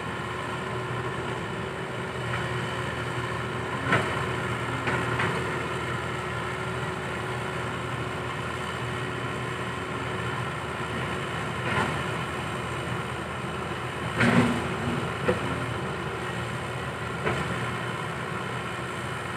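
Komatsu PC120-5 hydraulic excavator's diesel engine running steadily, with several short knocks and clanks over it.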